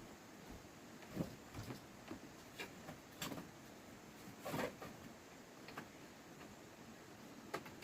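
Faint, irregular knocks and clicks against a quiet background, about six in all, the loudest a little past the middle.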